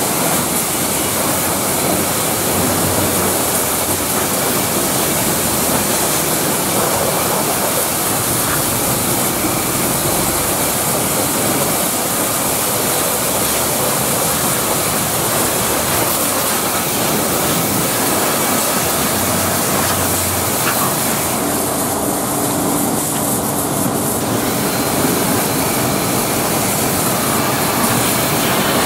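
High-pressure washer jet blasting a truck's wheel and tyre: a loud, steady hiss of spray with water spattering off the rubber, rim and wheel arch. About three-quarters of the way through, the hiss briefly thins.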